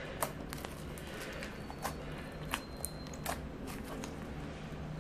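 Clear slime made from transparent glue and borax being poked and squeezed by fingers, giving small irregular clicks and pops.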